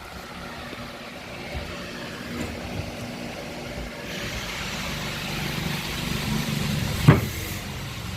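A steady motor hum that grows slightly louder partway through, with a single sharp knock about seven seconds in.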